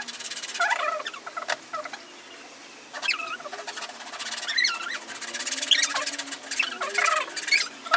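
Small red-framed hand saw cutting a thin wooden strip: repeated rasping strokes mixed with high, wavering squeaks.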